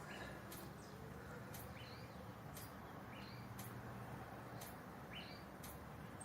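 Faint short rising bird chirps, several times, over a low steady hum, with a faint tick about once a second.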